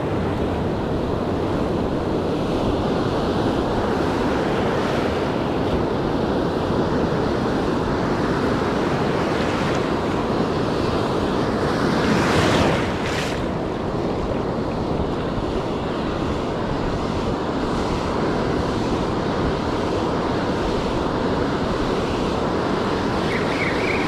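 Ocean surf breaking and washing in steadily, with wind on the microphone; a louder wave rush comes about halfway through.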